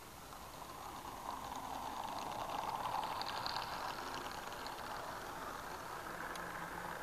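OO gauge model diesel locomotive and its coaches running past on the track: the electric motor and wheels make a steady whirring that grows louder as the train draws level, about three seconds in, with a brief run of fine clicking from the wheels on the rails.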